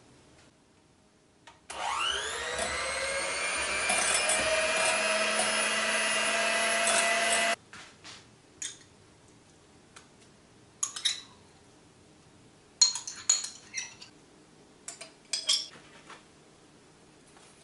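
Electric hand mixer beating eggs and mashed banana in a glass bowl: the motor whines up in pitch as it starts, runs steadily for about six seconds, then stops abruptly. A few light knocks and clicks follow.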